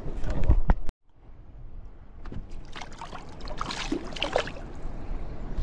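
Water splashing and sloshing at the side of a small boat, with bright splashes loudest about three to four and a half seconds in. It opens with a loud low rumble that cuts off abruptly just before a second in.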